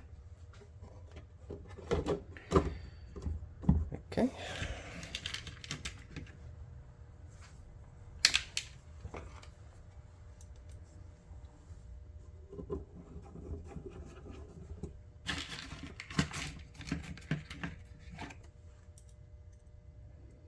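Irregular clicks, taps and scrapes of a race timer's plastic case and small parts being handled and fitted on a bench, with a brief rustling hiss about four seconds in, over a steady low hum.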